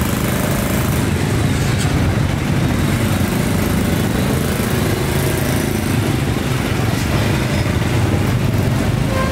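Busy street traffic dominated by the steady low running of small motorbike engines passing close by.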